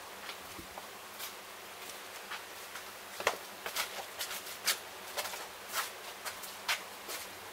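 Footsteps on hard ground: short scuffing steps about half a second apart, starting about three seconds in, over a faint steady hiss.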